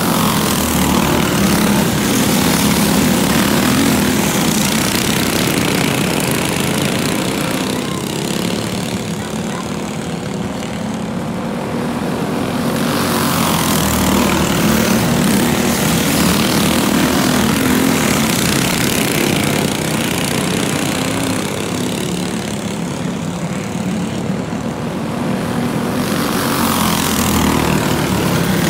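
A pack of yard karts with Predator 212 single-cylinder four-stroke engines racing, several engines buzzing together at high revs. The drone swells as the karts pass close, near the start, in the middle and near the end, and fades in between.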